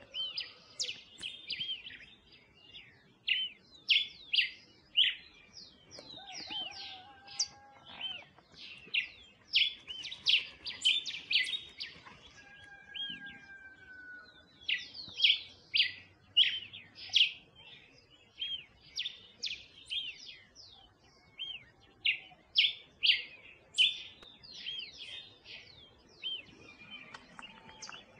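Small birds chirping: many short, high notes and quick sweeps in irregular succession, with a couple of longer, lower whistled notes in between.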